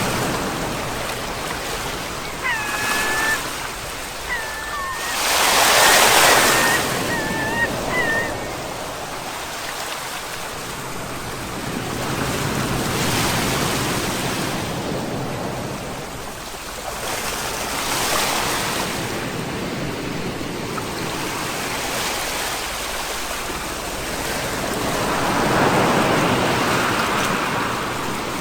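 Sea waves breaking and washing on the shore, the surf swelling and easing every several seconds. A few short, high chirping calls come through in the first third.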